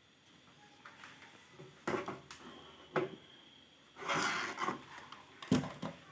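Handling noise from a 2.1 home-theatre speaker unit being moved and turned over: a few sharp knocks and a short scrape about four seconds in.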